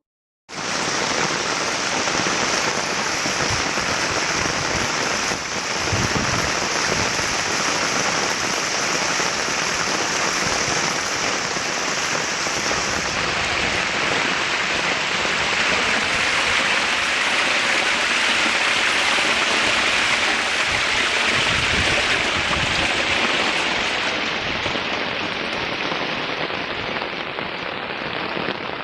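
Heavy monsoon rain pouring down in a steady hiss; about halfway through the hiss turns lower and fuller.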